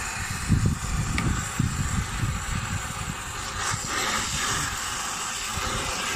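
Hand-held MAPP gas brazing torch flame hissing steadily while it heats the copper pipe joints on an air-conditioner compressor to melt them free. Irregular low rumbles on the microphone come and go under it.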